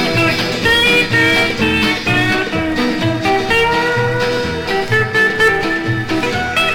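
Instrumental break of a 1950s country song: a plucked guitar plays a melody over a steady bass-and-rhythm backing.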